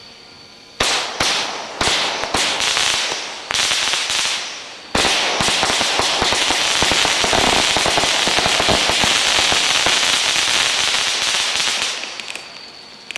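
A 61-shot consumer fireworks cake, Shelton's Monster Truck Rally, firing: separate shots about half a second apart for the first few seconds, then a dense run of rapid-fire reports for about seven seconds, dying away into scattered pops near the end.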